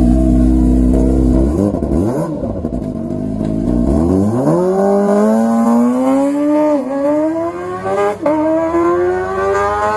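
Kawasaki ZX25R's 250 cc inline-four running through an aftermarket exhaust called Yakuza, revving at a standstill, then pulling away with a long rising wail as it accelerates, cut by two quick upshifts about five and six seconds in.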